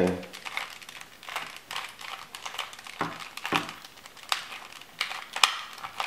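A 2x2 mini Rubik's cube being turned quickly through an algorithm: a rapid, irregular run of plastic clicks and clacks as its layers rotate, with a few louder clacks about halfway through.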